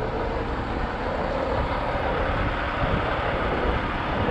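Riding noise from a Hover electric scooter under way: steady wind and rolling rumble, with a faint motor whine that rises slightly in pitch over the first couple of seconds.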